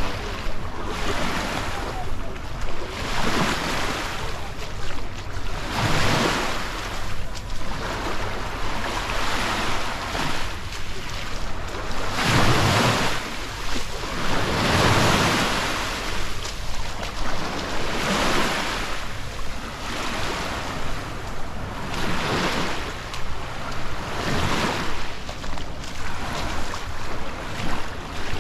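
Small sea waves breaking and washing up on a beach about every two to three seconds, with a steady rumble of wind on the microphone underneath.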